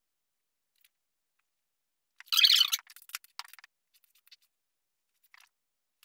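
Chalk drawing on a blackboard: one long, loud scratchy stroke a little after two seconds in, followed by a run of short faint chalk taps and strokes.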